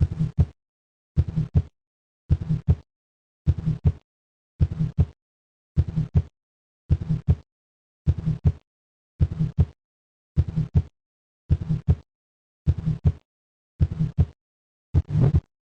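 Recorded heart sounds of aortic stenosis: each beat has the first heart sound, then a harsh ejection murmur peaking in mid-systole and ending before an audible second heart sound. Steady rhythm of a little under one beat a second.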